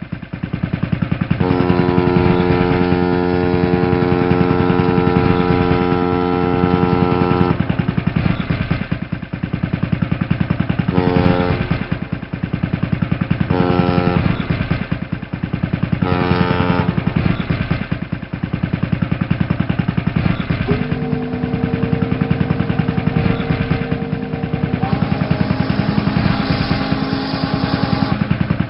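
Boat engine running steadily under repeated horn blasts: one long blast of about six seconds, three short blasts a couple of seconds apart, then a long tone of about seven seconds that steps up in pitch partway through.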